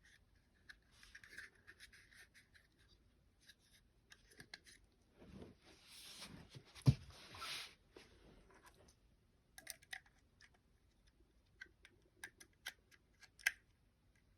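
Glock 29 pistol parts being handled during takedown or reassembly: light scraping and rubbing, a sharp knock about seven seconds in, then a string of small separate clicks near the end.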